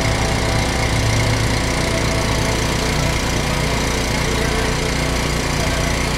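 A small motor running steadily with a low, even hum.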